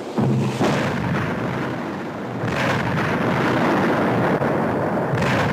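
Mortar firing and its shells exploding: a sudden bang just after the start, another about half a second later, then a continuing rumble of blasts with a further burst about two and a half seconds in.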